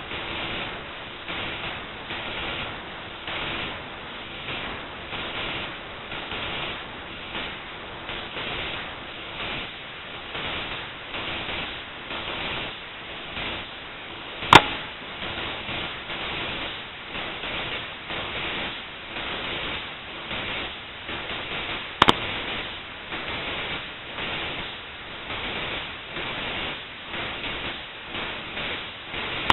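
Two sharp single gunshots about seven and a half seconds apart, from a J.C. Higgins single-shot rifle firing .22 Long Rifle rounds handloaded with blackpowder (Pyrodex), heard from downrange. Each shot is a brief crack over a steady, pulsing hiss.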